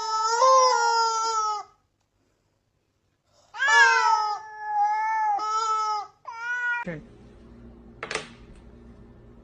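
Cat meowing: one long drawn-out meow that ends a couple of seconds in, then after a pause a run of four more meows in quick succession. Near the end the meowing gives way to a quieter steady low hum with one short sharp sound.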